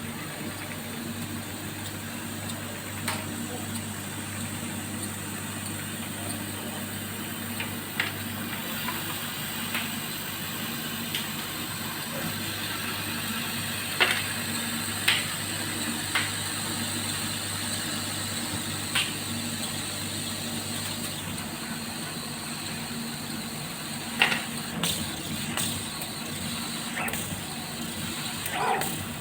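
CO2 CNC laser cutting machine running: a steady mechanical hum with a high hiss, and scattered short sharp ticks. The lowest part of the hum drops out about two-thirds of the way through.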